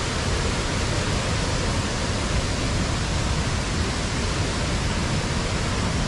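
Steady, even rush of fast-flowing river water falling toward a waterfall.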